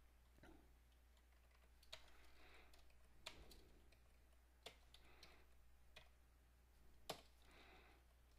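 Faint, scattered keystrokes on a computer keyboard: about five separate sharp key clicks, a second or so apart, with softer taps between.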